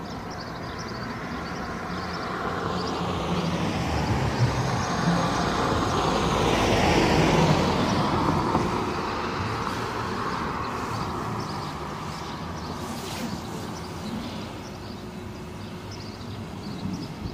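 A road vehicle passing close by: its tyre and engine noise swells to a peak about seven seconds in and then fades away. A steady low hum runs underneath.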